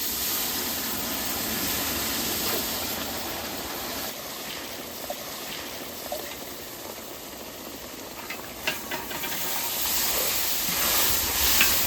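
Water poured onto spiced oil and masala frying in a large uruli, sizzling steadily with steam. A few light clicks come near the end.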